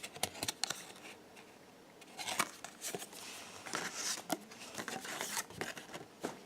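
Trading cards and their paper-and-foil packaging being handled: a few short clicks and snaps, then, from about two seconds in, a longer stretch of crinkly rustling.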